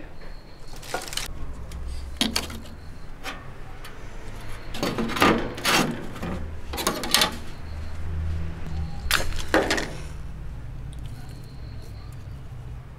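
Dry kindling and sticks rustling and knocking as they are loaded into a cast-iron wood-burning stove, with several sharp clatters against the metal scattered throughout.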